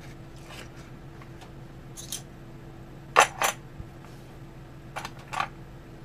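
Light clicks and taps of small tools and laptop parts being handled, three quick pairs with the loudest in the middle, over a low steady hum.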